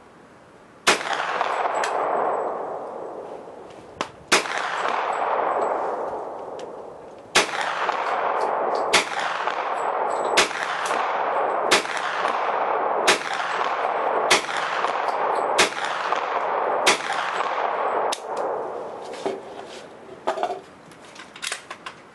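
Ten shots from a KelTec Sub2000 pistol-caliber carbine in .40 S&W. The first two come about three seconds apart, then the shots come steadily about every second and a half. Each shot is followed by a long echo that fades over a second or two.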